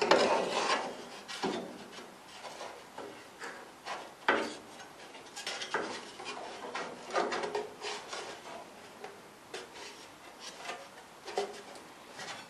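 Steel closing panel being slid and pressed into place by hand against the Classic Mini's sheet-metal body, metal scraping and knocking on metal in irregular strokes. The loudest handling comes near the start, with a sharp knock about four seconds in.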